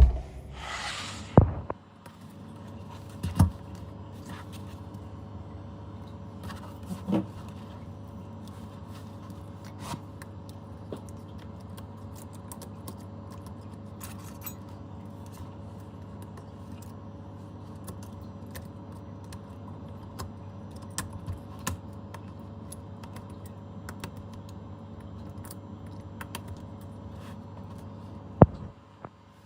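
Light metallic clicks and taps of small repair tools handled on a workbench, scattered through a steady low hum. There is a short hiss in the first second or two and a few louder knocks near the start.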